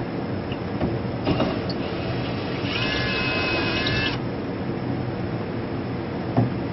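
Drill fitted with a cut-off Allen key whirring for about a second and a half, about three seconds in, to back out a mounting bolt, with a few sharp metallic clicks and a steady background noise.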